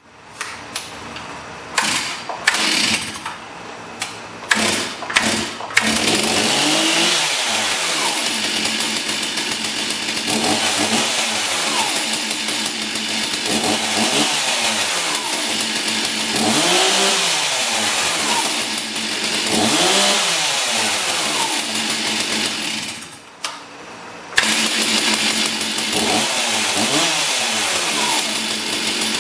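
Stihl MS361 two-stroke chainsaw revving in the air with no cut: a few short throttle blips from idle, then held at high revs for long stretches with the engine speed repeatedly dipping and climbing back. About two-thirds of the way through it drops briefly to idle, then revs up again.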